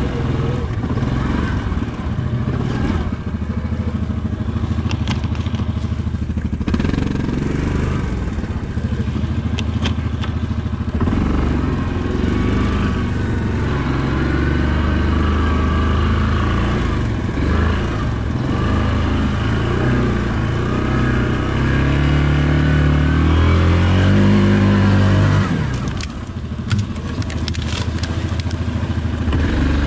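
Yamaha Grizzly ATV's single-cylinder four-stroke engine running, its pitch rising and falling a few times past the middle as the throttle is worked. Near the end the engine note drops and branches clatter and scrape against the machine as it comes to a stop among trees.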